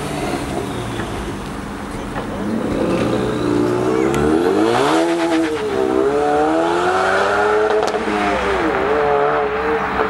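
Ford Mustang engine revving hard as the car accelerates away, its pitch climbing, falling back and climbing again through the gears.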